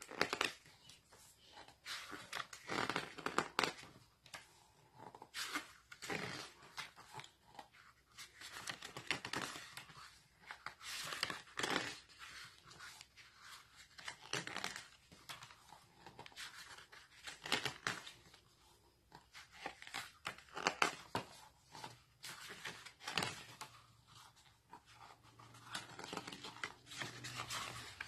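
Glossy pages of a thick photobook being turned one after another, each turn a short papery swish, coming at an uneven pace about every second or two.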